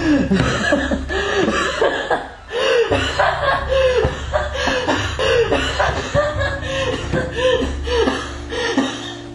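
A man laughing in a long run of short chuckles, each bursting up and falling in pitch, with a low steady hum underneath.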